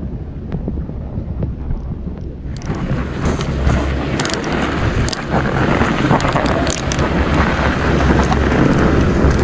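Wind buffeting the camera microphone: a low rumble and rushing noise with scattered clicks and rustles. It grows much louder about two and a half seconds in.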